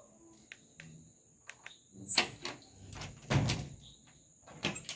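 Wooden-framed window being pulled shut: a few light clicks, scraping and knocking of the frame, loudest just after three seconds, then a sharp knock near the end as it closes.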